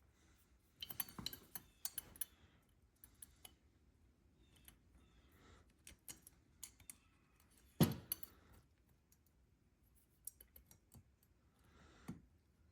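Small metal clicks and taps of Mikuni carburetor parts being handled and fitted by hand, with one louder knock about eight seconds in.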